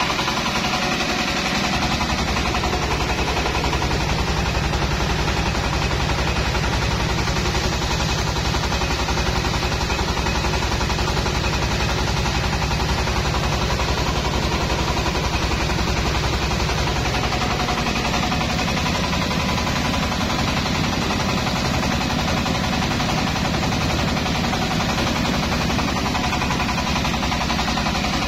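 Truck-mounted mobile rice mill, a Yanmar HW60 husker and Daichi N70 polisher with its drive engine, running steadily under load while milling paddy, a loud, fast, even pulsing with no let-up.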